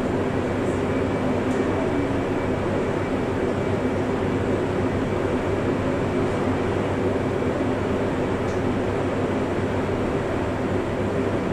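Steady hum inside the passenger car of a stationary 485-series electric train, from its air conditioning and onboard electrical equipment running while it stands at a halt.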